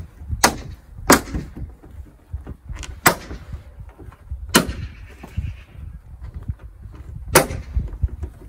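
Plastic clips of an aftermarket bonnet scoop snapping into a Mini Cooper S bonnet as the scoop is pressed down by hand: about five sharp clicks a second or more apart, showing the clips seating.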